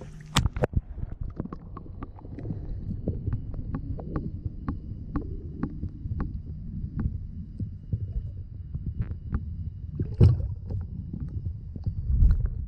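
Muffled underwater sound from a camera held below the water surface: a low steady rumble with scattered clicks and knocks. It starts with a few splashes as the hand and camera break the surface, and there are louder knocks near the end.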